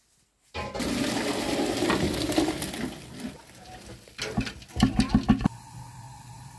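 Water gushing and splashing into a steel kitchen sink as rice is poured into a colander to drain. It starts suddenly about half a second in and fades after a few seconds, followed near the end by a quick run of about five knocks.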